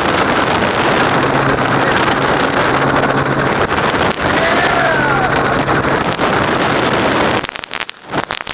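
Helicopter engine and rotor noise heard from inside the cabin: a loud, steady rushing noise over a low hum. It drops away sharply near the end, broken by a few clicks.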